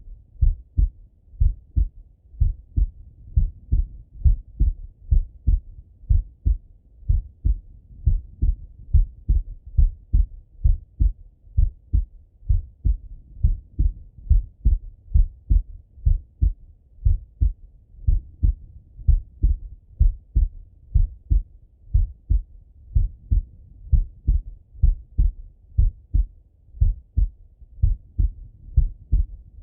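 A man's heartbeat heard through a Littmann stethoscope: steady, regular low thumps of the lub-dub heart sounds, with no other sound.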